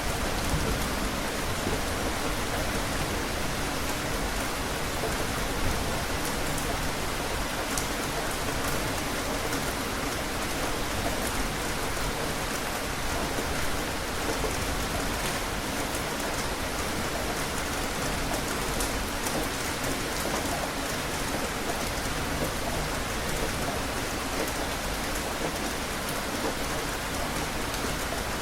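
Steady rain falling and pattering on surfaces, a dense even hiss with many small drop impacts.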